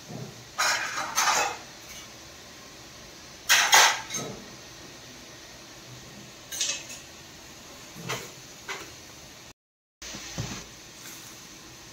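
Aluminium steamer pot and lid clattering in short bursts, about half a dozen times, over a steady low hiss.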